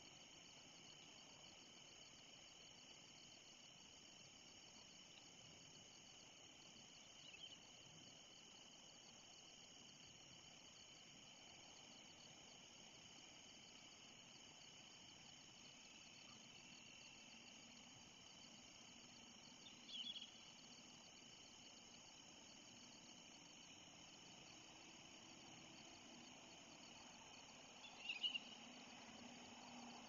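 Faint evening chorus of crickets or similar insects, a steady high trill. Three short high chirps stand out over it, about a third of the way in, at two-thirds, and the loudest near the end.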